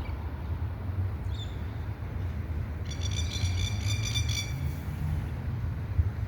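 A bird chirps briefly about a second in, then gives a pulsing, trilling call for about a second and a half from about three seconds in, over a steady low outdoor rumble.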